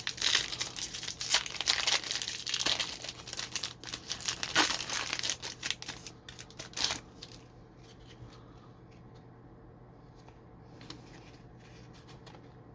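Foil wrapper of a Topps Chrome Platinum baseball card pack being torn open and crinkled for about the first seven seconds, then only faint rustling.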